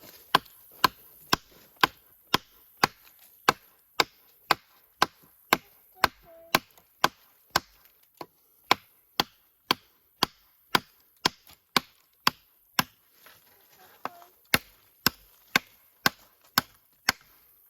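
Gerber StrongArm fixed-blade knife chopping into wood: sharp, evenly paced strikes about two a second, stopping just before the end.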